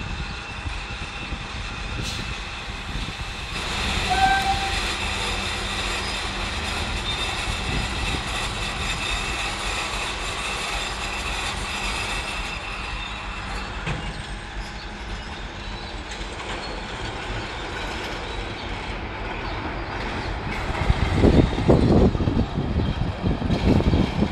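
Freight train of log-loaded wagons moving on the station tracks: a steady rumble with a high steady whine over it from about four to twelve seconds in, and louder heavy clanking in the last few seconds.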